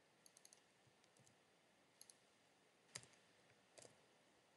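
Faint computer keyboard typing: a quick run of keystrokes near the start, then scattered single key clicks, the sharpest about three seconds in.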